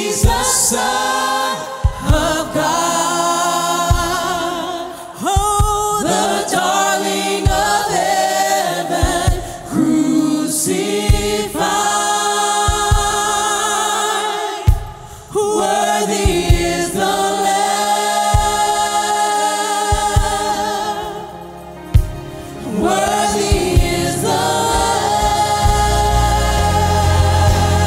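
A choir sings a gospel worship song over a low thudding accompaniment, with a heavier bass coming in near the end.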